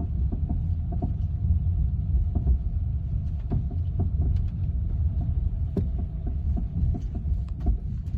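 BMW F30 knocking: short sharp knocks, unevenly spaced about every half second, over a steady low rumble and hum. The source of the knock is unknown.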